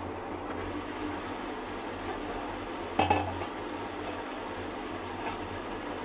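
A metal cooking utensil knocks sharply against a cooking pot once, about halfway through, with a short ring, and there is a lighter clink later. A steady low background noise runs beneath.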